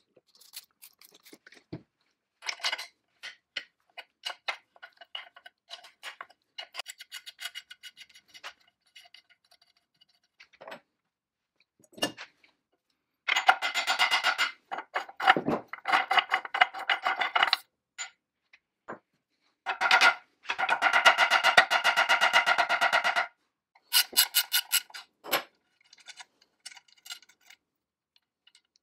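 Hand socket ratchet clicking in fast, even runs while nuts are unscrewed, with scattered light metal clicks and clinks of a wrench and loose nuts between the runs.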